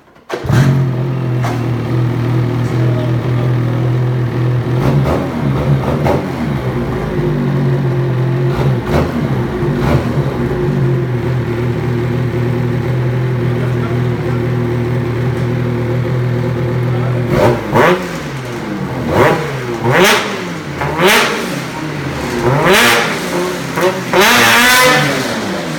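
2018 Ski-Doo Summit 850 X's two-stroke twin, fitted with a GGB mountain can exhaust, starts about half a second in and idles steadily. From about seventeen seconds in it is revved in several short blips that rise and fall.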